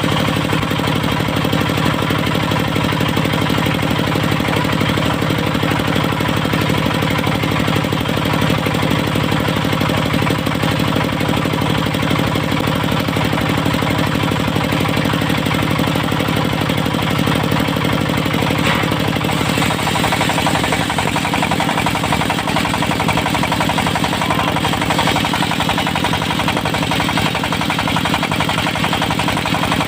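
Diesel engine driving a portable circular sawmill, running steadily at a constant speed, with a slight change in tone about two-thirds of the way through.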